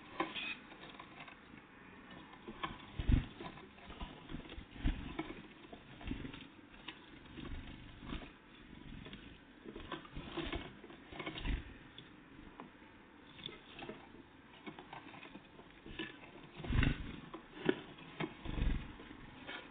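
Great tits and blue tits at a feeding spot: irregular small taps, pecks and scrapes as they land and peck at the food, with a few louder knocks about three seconds in and near the end.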